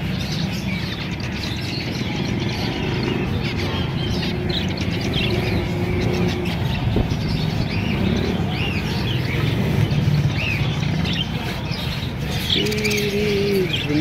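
Caged zebra finches and budgerigars chirping: many short high calls in quick succession over a steady low background rumble, with a lower drawn-out call near the end.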